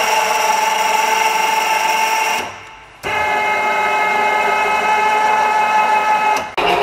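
WMW GCO 40 pillar drill running with a steady whine of several fixed tones. About two and a half seconds in it is switched off and winds down, then it starts again half a second later. Near the end it stops briefly and restarts at a different pitch.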